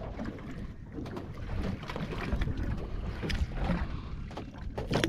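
Wind buffeting the microphone on an open boat at sea, a gusting low rumble, with water slapping at the hull and a few small knocks.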